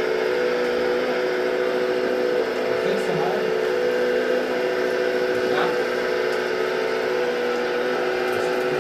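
Steady, unchanging motor-and-pump whine from radio-controlled construction models at work, as a model hydraulic excavator loads gravel into a model dump truck.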